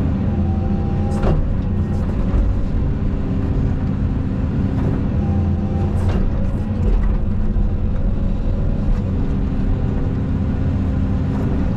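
Caterpillar 320 hydraulic excavator working: its diesel engine runs steadily under load, with a thin whine that comes and goes as the hydraulics work, and a couple of sharp knocks.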